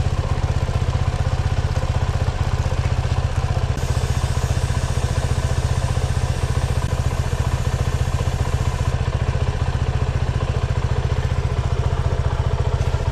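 Suzuki V-Strom 250SX's single-cylinder engine idling steadily with the bike up on its stand, an even low pulsing throughout; a light hiss joins it for a few seconds in the middle.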